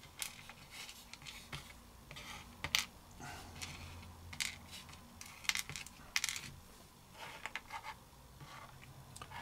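Small 3D-printed miniature figure parts clicking and tapping on a desk as they are picked up, moved and set down by hand: light, irregular clicks, a few sharper than the rest.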